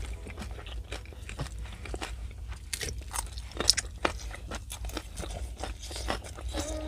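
A person biting and chewing crunchy food close to the microphone: irregular crisp crunches and crackles.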